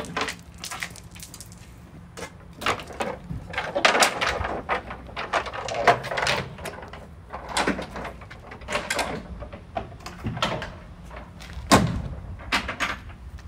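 Metal tailgate and body panels of a Land Rover Defender 110 truck being handled, giving a string of knocks and clunks, the sharpest about halfway through and again near the end.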